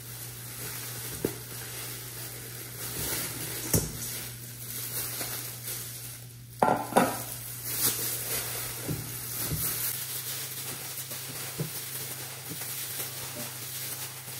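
Metal kitchenware knocking as a rice cooker's inner pot is emptied into a stainless steel mixing bowl and set down, with a couple of louder knocks about seven seconds in. Thin plastic food-prep gloves crinkle and rustle between the knocks, over a steady low hum.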